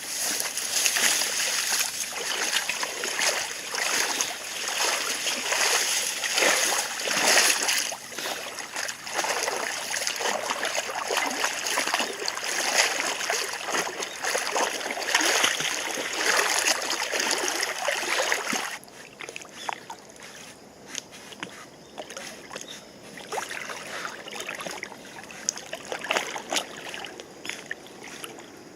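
Water splashing and rushing in a river swollen and muddy after a typhoon, in irregular splashes over a steady wash. The sound drops sharply about two-thirds of the way through, leaving quieter, sparser splashing.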